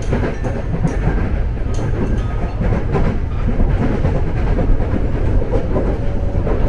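KRL Commuter Line electric train running along the track: a steady low rumble with wheel clatter over the rails.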